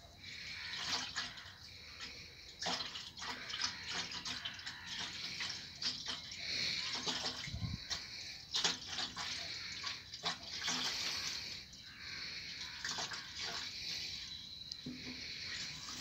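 Diesel fuel being poured from a plastic can into an engine's fuel tank: a steady splashing stream with irregular gurgles.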